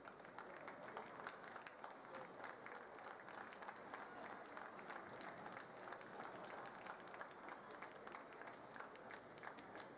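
Faint audience applause, many separate claps running together.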